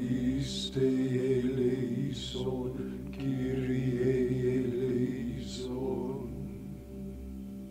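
Silver transverse flute playing slow, breathy notes over a low, steady chant-like drone, the whole growing quieter in the last couple of seconds.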